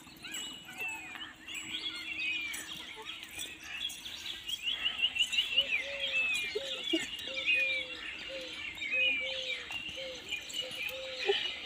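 Outdoor birdsong: many small birds chirping and twittering, and from about five seconds in a low call repeated about a dozen times in short, evenly spaced notes.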